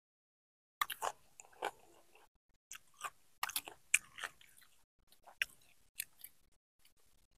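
Close-miked chewing and crunching of food through a lapel microphone: a person eating chicken parota with raw onion and tomato. It comes in short crackly bursts with pauses between them, starting about a second in.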